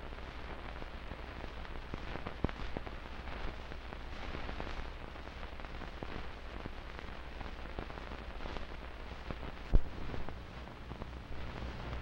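Crackle and scattered pops of an old optical film soundtrack over a steady low hum, with one louder pop about ten seconds in.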